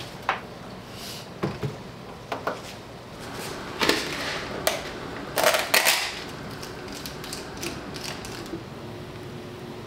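Unwrapping an instant noodle cup: a few light clicks and knocks, then loud crackling of the plastic wrap and packaging about four to six seconds in, and quieter handling of the lid and packets after.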